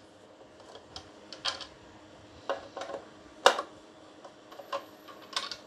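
Scattered light clicks and taps of a hand tool working the two screws that hold the impeller shroud of a pool pump, with one sharper click about three and a half seconds in.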